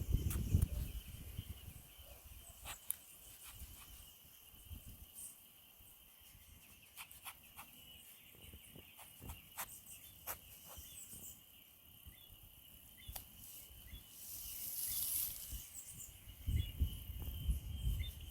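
Outdoor insect chorus: a steady high trill runs throughout, with scattered sharp clicks and rustles. There is a brief high hiss a little before the end.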